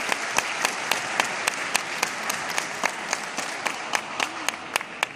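Audience applauding in a large hall, with sharp claps in a steady rhythm of about three a second that die away near the end.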